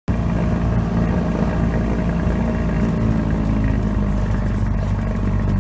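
A light aircraft's propeller engine running steadily, heard from inside the cockpit. It cuts in abruptly at the start.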